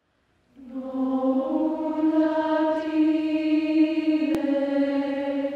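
Mixed choir singing a long, steadily held chord that comes in about half a second in.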